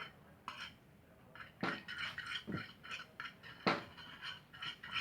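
A utensil stirring and scraping white glue mixed with yellow colouring in a container, in irregular strokes with a few sharper clinks against the sides.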